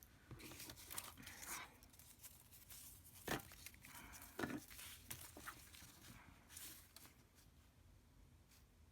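Faint rustling of paper and light taps as craft materials are handled and placed, with two sharper clicks near the middle.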